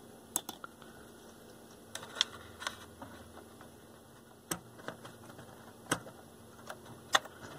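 Faint, irregular clicks and light taps, about nine over several seconds: a multimeter probe and a fiberglass rod knocking against components and wiring inside an amplifier chassis while a probe point is positioned for a measurement.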